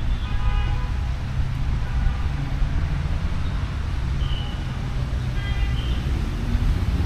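Steady low rumble of street traffic, with two brief high-pitched tones, a quarter second in and about five and a half seconds in.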